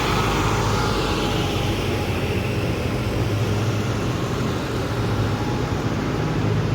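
IndyCar race car running at speed along the track, its engine note falling in pitch over the first few seconds as it passes, over a steady loud roar of track noise.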